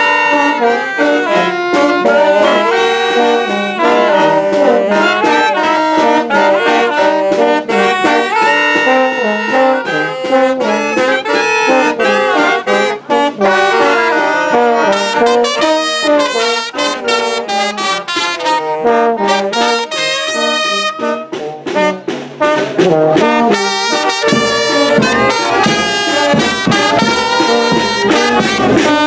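A small wind band playing live: saxophones, clarinet and trumpets over a bass drum, with a tuba-type low brass horn. Its deep bass notes come in strongly about two-thirds of the way through.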